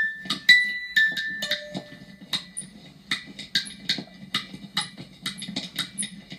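Finger touches picked up and boosted through a Ginko Synthese Eurorack mixer with its gain switch on: irregular sharp clicks and crackles, some with short ringing tones, over a steady low hum. The high gain makes every small movement audible.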